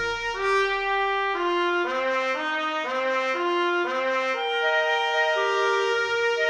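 Instrumental background music: a melody of clear held notes stepping up and down about every half second, then settling into longer notes.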